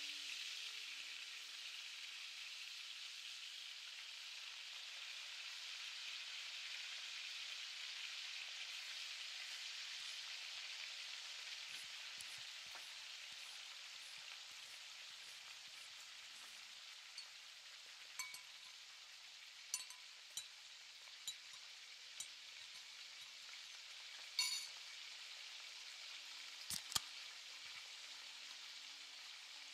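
Food sizzling in a hot pan, a steady frying hiss that slowly fades. In the second half come scattered sharp clicks and clinks, the loudest a few seconds before the end.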